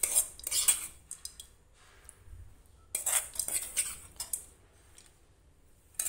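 A metal spoon scraping and clinking against cookware as fried vegetable mixture is scooped into a bowl of idli batter: two bursts of about a second each, at the start and about three seconds in, and a shorter one near the end.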